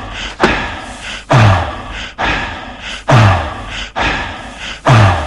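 Electronic drum-machine beat: a heavy kick drum that drops in pitch lands about every 1.8 seconds, with a sharper snare-like hit halfway between each pair.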